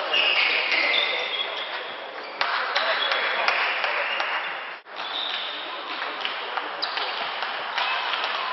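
Table tennis rally: the celluloid ball clicking sharply off bats and table in quick succession, over the murmur of the hall crowd. About two and a half seconds in, a point ends and clapping swells up; later the clicks of the next rally start again.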